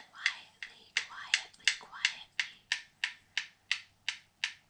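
Two wooden rhythm sticks tapped together quietly in a steady beat, about three light clicks a second.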